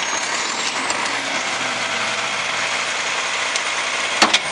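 Garbage truck's diesel engine running at idle while the Labrie side loader's hydraulic cart lifter works, a steady mechanical hum with a faint rising whine in the first second. Two sharp knocks come near the end as the emptied recycling cart comes back down.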